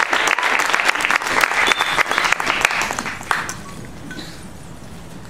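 Audience applauding, dying away a little over three seconds in, then quiet room hum.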